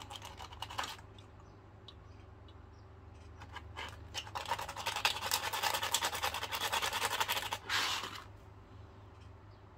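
Coarse sandpaper rubbing over a small metal contact from a circuit breaker in quick back-and-forth scraping strokes. There is a short bit of scratching at the start, and the sanding runs hardest from about four to eight seconds in. The contact is being scoured clean of burn marks that made the breaker connect unreliably.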